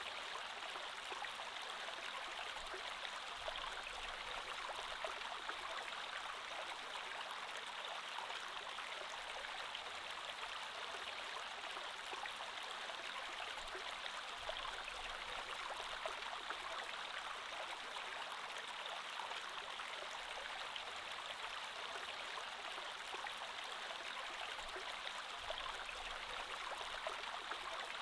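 Creek water flowing steadily over stones, an even rushing babble with fine splashing detail.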